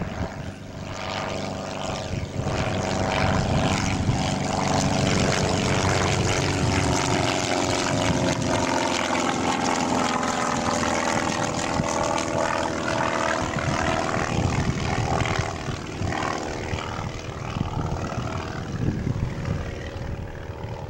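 Piper Arrow single-engine propeller plane climbing out at takeoff power, its engine and propeller droning steadily. The drone grows louder over the first few seconds as the plane comes past, then fades gradually as it climbs away.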